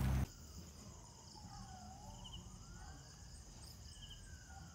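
Crickets and other night insects chirring steadily, with a distant siren wailing faintly, its pitch rising slowly for about three seconds and then falling again.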